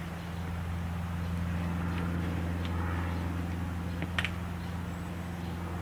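Steady low mechanical hum, with a few faint clicks and one short knock about four seconds in.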